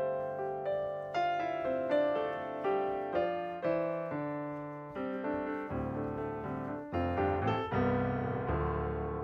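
Background piano music: a gentle melody of struck notes, each ringing and fading.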